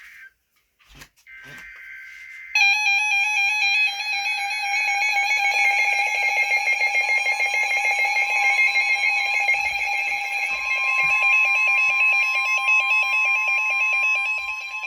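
Emergency Alert System alert signal: two short bursts of data tones, then a loud, evenly warbling electronic alert tone from about two and a half seconds in, with a steady higher tone joining about halfway. It marks the start of a new severe thunderstorm warning.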